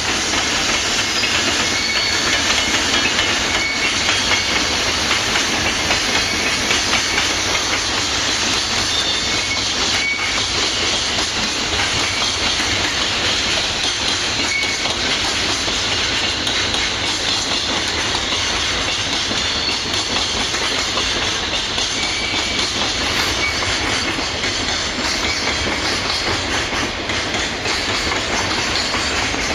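Freight train rolling past, a steady rumble and clatter of wagon wheels on the rails, with short high-pitched wheel squeals here and there.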